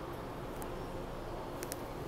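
SEPTA Regional Rail coach rolling slowly into the station: a steady rumble with a faint hum, and a few brief sharp clicks about halfway and near the end.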